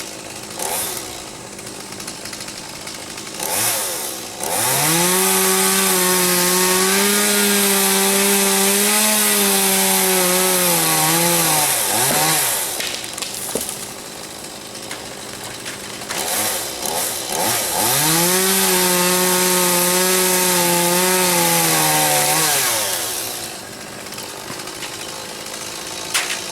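Chainsaw engine revving up to full speed twice, each run lasting about seven seconds, and dropping back to idle in between and near the end.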